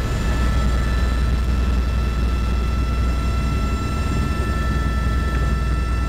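Helicopter heard from inside the cabin in flight: a loud, steady low drone of engine and rotor with a steady high whine over it.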